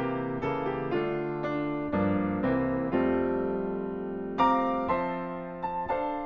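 Piano background music: a melody of separate notes, each struck and then fading, over lower chords.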